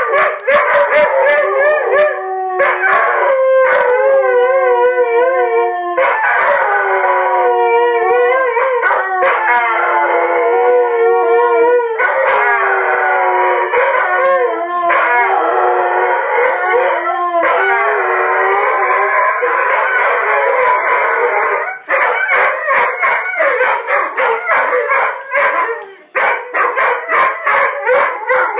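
Two Brittany dogs howling together in long, wavering, overlapping howls. In the last several seconds the howls turn shorter and choppier.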